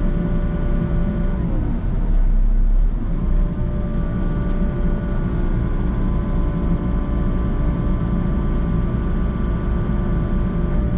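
Volvo excavator's diesel engine and hydraulics running steadily, heard from the cab, with a steady whine on top. About two seconds in, the pitch sags for a second or so and the low rumble gets louder, then the pitch climbs back to where it was.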